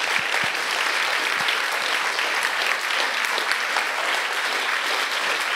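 Audience applauding steadily, a room full of people clapping.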